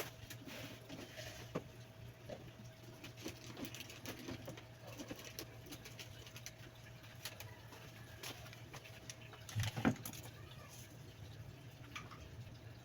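Scattered light clicks and taps of hands working with a fish in a kitchen, over a steady low hum, with one louder knock about ten seconds in.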